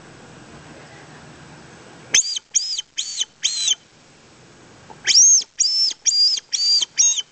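Squirrel caller sounding two runs of high whistled notes, each note rising and falling in pitch: four notes about two seconds in, then five more after a short pause. It is a lure call meant to draw a squirrel out of its nest entry.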